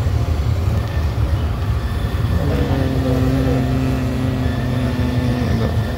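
Indian Railways passenger coach in motion, heard from inside: a loud, steady low rumble of the running train, with a steady pitched hum joining for about three seconds in the middle.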